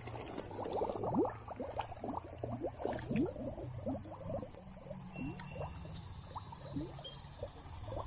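Water bubbling and gurgling around a camera held just at and under a river's surface, with many short rising blips as air bubbles break loose, over a steady low hum.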